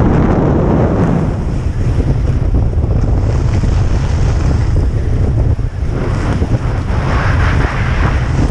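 Wind buffeting a GoPro action camera's microphone as the wearer skis downhill at speed: a loud, steady rumble, with the hiss of skis on snow rising near the end.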